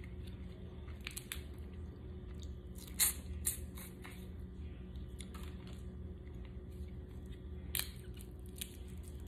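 Boiled crawfish being peeled and eaten by gloved hands: a series of sharp shell cracks and wet snaps, the loudest about three seconds in and another near the end, with sucking at the shell, over a steady low hum.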